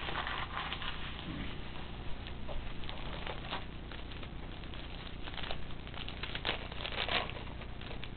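Hockey trading cards being flipped and shuffled through in the hands: an irregular run of soft flicks and rustles of card stock, busier about halfway through and again near the end.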